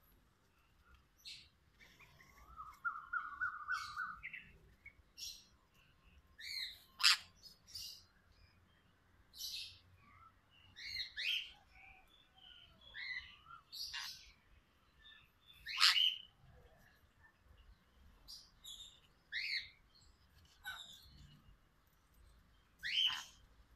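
Sun conures calling: short shrill calls every second or two, with a quick trill of about eight repeated notes a few seconds in.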